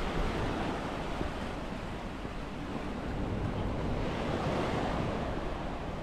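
Waves breaking and washing onto a beach as a steady surf noise, with wind buffeting the microphone.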